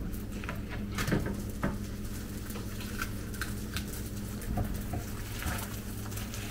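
Scattered light clicks and taps from handling things by hand, over a steady low hum.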